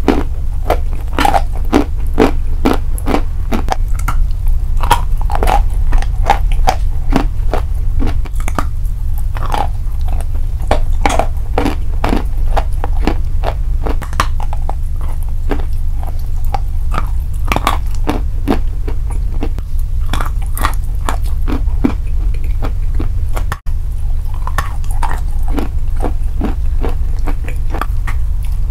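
Close-miked biting and chewing of chalk bars coated in chocolate: a dense, steady run of dry crunches over a low steady hum.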